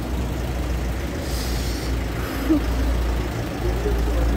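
Wind rumbling on the phone's microphone, a low steady buffeting, with a short hiss about a second and a half in.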